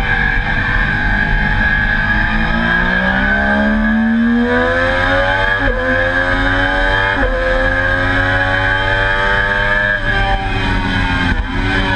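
Onboard sound of a Triumph Daytona sport-bike engine under hard acceleration. Its pitch climbs steadily and dips briefly at two quick upshifts about a second and a half apart, then drops near the end as the rider comes off the throttle.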